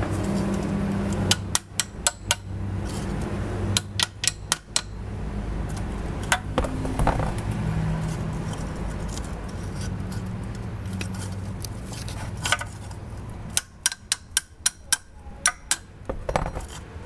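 Ratchet wrench clicking in short runs of several clicks as an exhaust clamp bolt is worked loose, over a steady low hum.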